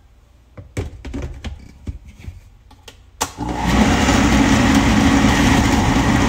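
A few handling knocks and clicks, then a sharp click about three seconds in as a countertop blender starts up and runs steadily, pureeing boiled vegetables and broth into soup.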